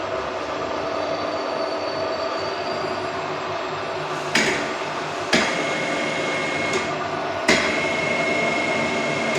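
Enshu vertical milling machine running with a steady mechanical hum. From about four seconds in there are four sharp metallic clanks, and after some of them a high steady whine sets in.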